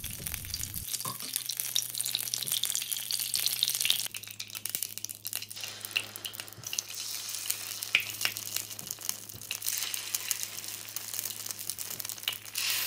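Hot oil sizzling and crackling in the cups of a masa pan, with scattered sharp pops, as rice batter is spooned in to fry. A low steady hum runs underneath.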